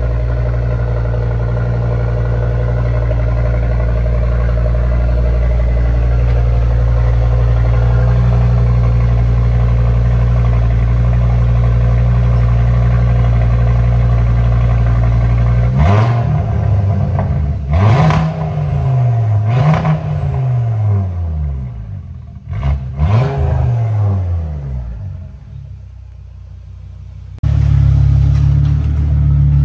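Audi RS3's turbocharged 2.5-litre five-cylinder engine, breathing through an AWE Track Edition cat-back exhaust, idling steadily after a cold start. About halfway through it is revved in about five quick blips, each rising and falling in pitch. Near the end the sound drops away for a few seconds, then a steady idle comes back suddenly.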